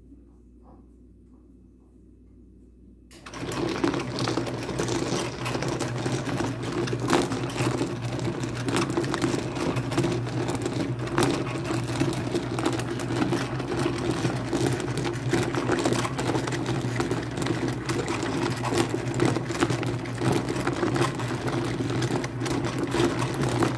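Rotary rock tumbler switched on about three seconds in: its motor hums steadily while rocks, water and coarse grit clatter inside the turning rubber barrel.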